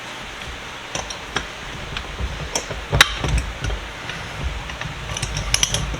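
Metal parts and tools being handled on a workbench: scattered light clinks and knocks, with one sharp knock about three seconds in and a quick run of clinks near the end.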